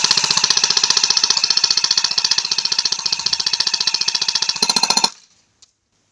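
CYMA CM035 AKS-74U electric airsoft gun on a 9.6 V battery firing full-auto: a fast, steady mechanical rattle of the gearbox cycling shot after shot as a mid-capacity magazine of 0.2 g BBs is dumped. It cuts off abruptly about five seconds in.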